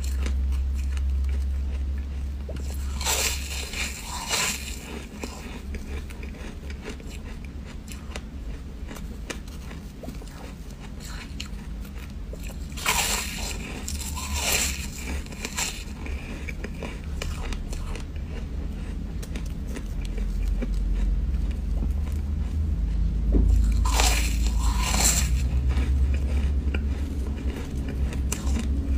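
Bites of purple foam ice crunching close to the microphone, in three bursts about ten seconds apart, with fainter crackling between them as it is chewed. A steady low rumble runs underneath.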